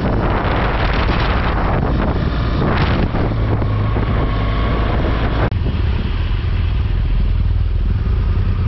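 Motorcycle engine running on the move, with wind buffeting the microphone. The wind noise drops away suddenly about five and a half seconds in, leaving the low engine drone.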